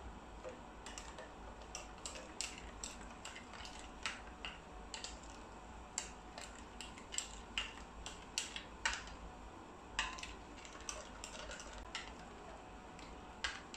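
Metal spoon stirring a thick paste of coconut milk powder and hot water in a plastic bowl, with faint, irregular clicks and taps as the spoon knocks and scrapes the bowl.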